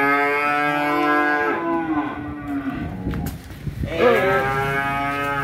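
A cow mooing: two long, drawn-out calls. The first fades about a second and a half in, and the second starts about four seconds in.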